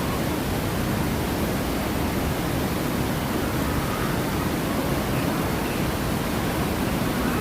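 Steady rushing of falling and churning water, typical of the waterfalls and rapids of the Grizzly River Run ride, holding an even level throughout.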